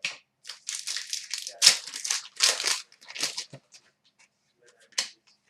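Trading-card pack wrapper crinkling and rustling in the hands for about three seconds as a pack is handled and opened, with a sharp click at the start and another near the end.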